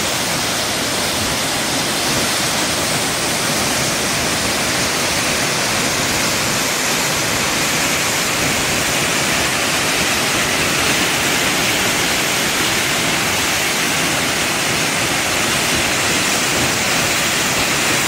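Steady, loud rush of Changey Falls, a waterfall dropping about 150 m and crashing into its plunge pool.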